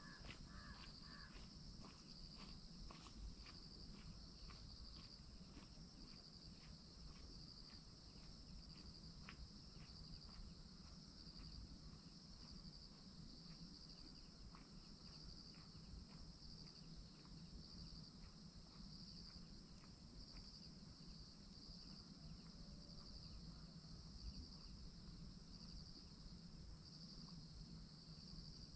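Faint outdoor insect chorus: a steady, high, pulsing trill, with quick faint ticks through roughly the first ten seconds.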